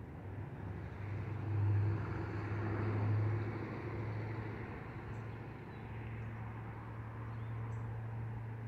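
Urban road traffic: a steady low engine hum with a vehicle passing, swelling loudest about two to three seconds in and then settling back to a steady drone.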